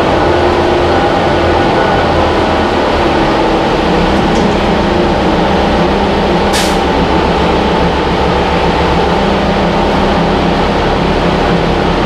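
A Cummins ISL9 diesel engine and Allison transmission of a New Flyer Xcelsior XD40 transit bus running under way, heard inside the cabin with road noise. The engine note shifts higher about three to four seconds in. A short sharp click comes about six and a half seconds in.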